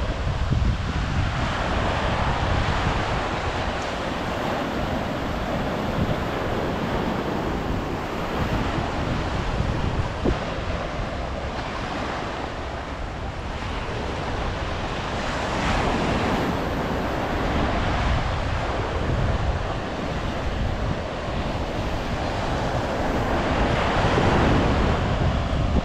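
Ocean surf breaking on a sandy beach, swelling and easing as waves come in every several seconds, with wind buffeting the microphone in a low rumble.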